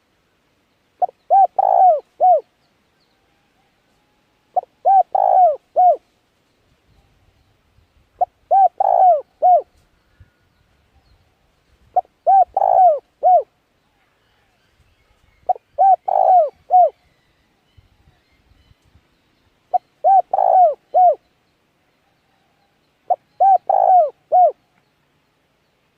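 A bird calling in short phrases of about four quick, hooting notes, repeated every three to four seconds, seven times in all.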